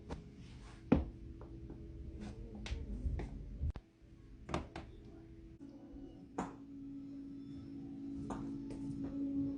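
Joints cracking during a chiropractic adjustment: a string of sharp pops and clicks, the loudest about a second in. A steady low tone runs beneath them.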